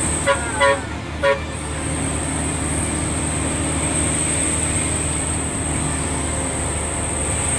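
Three short horn toots in the first second and a half, then the steady drone of a medium bus's engine and tyres heard from inside its cabin.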